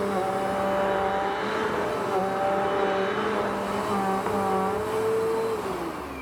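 Vacuum cleaner running, its motor whine dipping and shifting in pitch a few times. Near the end it is switched off and the whine falls in pitch as the motor winds down.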